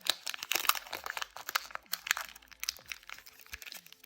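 Foil Pokémon booster-pack wrapper crinkling and crackling as it is handled and worked open. The crackles come thick for about two and a half seconds, then thin to a few scattered ticks.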